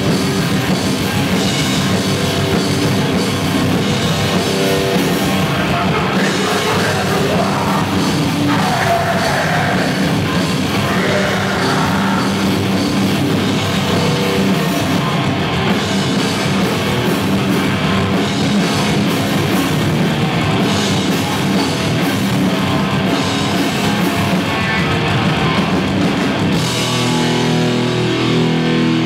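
Live hardcore band playing loud and fast: distorted electric guitar, bass and drum kit through the stage PA. Near the end the playing changes to held, ringing chords.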